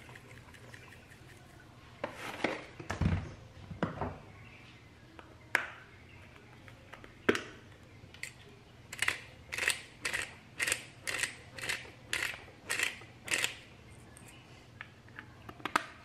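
Seasoning jar knocked down on the counter, a couple of clicks, then a hand pepper mill grinding black pepper in about a dozen short, even strokes, roughly two a second.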